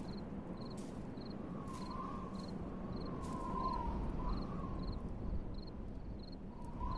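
Night ambience of crickets chirping in an even rhythm, about three chirps every two seconds, over a low rumble, with a faint wavering whistle like wind through the middle.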